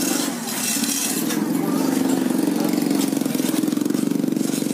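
A vehicle engine idling close by: a steady, low, fast-pulsing hum that grows stronger about a second and a half in.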